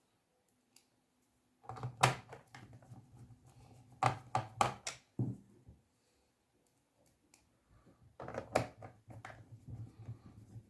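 Sharp plastic clicks and knocks of hands and tools working on a laptop's case during reassembly, coming in clusters about 2 seconds in, around 4 to 5 seconds and near the end.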